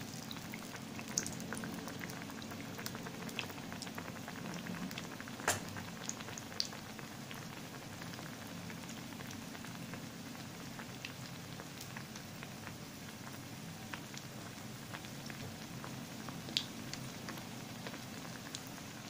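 A black-eyed pea vada deep-frying in hot oil: a steady bubbling sizzle with many small scattered pops and crackles. A sharper pop comes about five and a half seconds in, another near the end.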